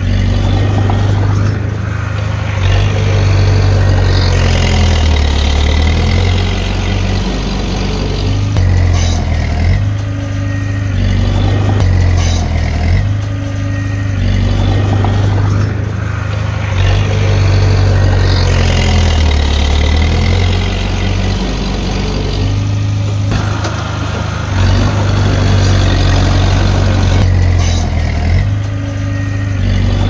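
Diesel engine of a Komatsu D30P crawler bulldozer running steadily while working. The engine sound swells and eases in a repeating cycle about every seven or eight seconds.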